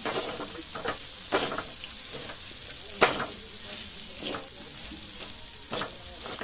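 Flattened rice (poha) frying in oil in a metal kadai with a steady sizzle, while a metal spatula stirs and scrapes against the pan in strokes about once a second. The dish is nearly cooked.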